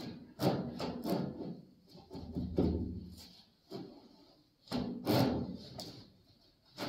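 Irregular knocks and thuds, about half a dozen spread unevenly over several seconds, with a low rumble between them.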